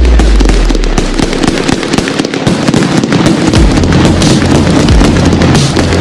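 A large pile of firecrackers going off as a dense, rapid barrage of sharp cracks and bangs, many reports a second, without let-up.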